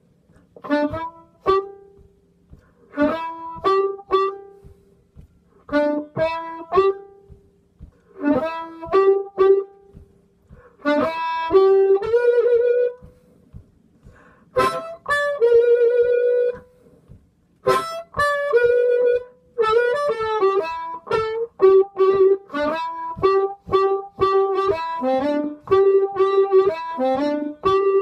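Blues harmonica played cupped against a bullet microphone and amplified: short rhythmic chord stabs at first, then longer held notes, and busier phrases near the end.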